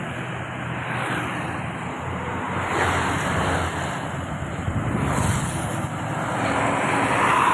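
Road traffic going past: engine and tyre noise from passing vehicles, swelling louder as vehicles go by, about three seconds in and again near the end.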